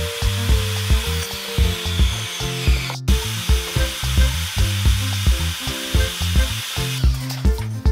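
Background music with a steady beat of low bass notes, over a continuous scratchy hiss that stops about seven seconds in.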